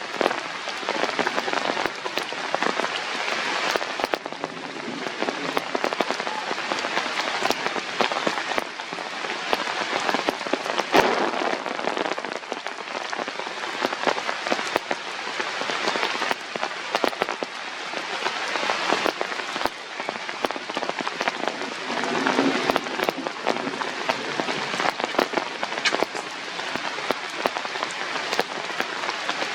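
Steady hiss of rain falling, with many small crackles throughout.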